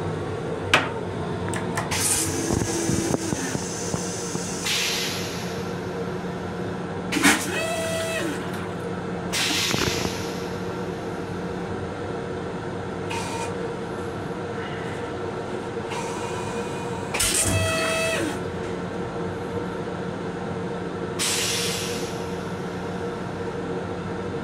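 Metro-North M7 railcar toilet: the plastic seat clacks down about a second in, then the flush runs twice in the same pattern, each time as short hisses and rushes of water with a brief whistle. The railcar's steady hum runs underneath.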